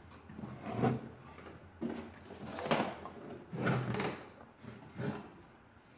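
A 1938 tube radio being tipped over onto its back on a bench: a series of handling knocks, bumps and scrapes, about six of them spread across a few seconds.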